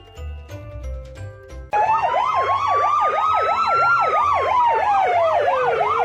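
Soft background music, then about two seconds in an electronic siren starts suddenly and loudly. It is a fast warble of about three cycles a second, laid over a slower wail that rises, falls and starts rising again.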